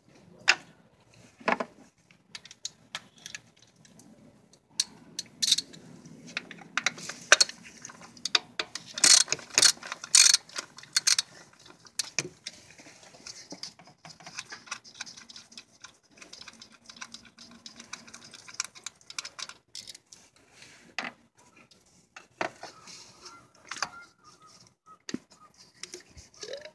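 A ratchet and socket extension clicking and clinking against metal as spark plugs are worked out of the engine's plug wells. The sharp clicks come irregularly and are thickest around the middle.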